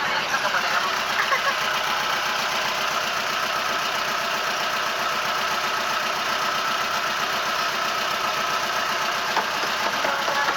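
Boat engine running steadily at an even pace, a constant dense mechanical drone with no change in speed.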